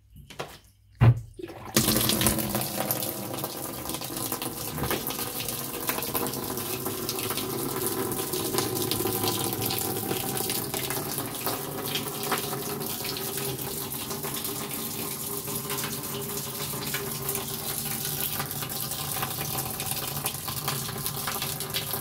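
Tap water pouring from a hose into the empty plastic wash tub of a twin-tub washing machine, a steady splashing rush that starts about two seconds in. Two short knocks come just before the water starts.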